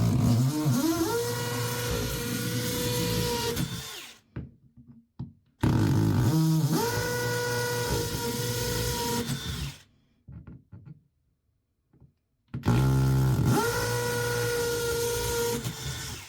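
Power drill running three times, about four seconds each, separated by short pauses. Each run spins up with a rising whine and then holds a steady pitch while it drills the mounting holes for a grab bar.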